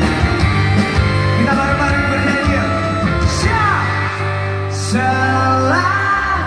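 Live pop-rock band playing a ballad with singing over it, heard from far back in the audience of a large concert hall.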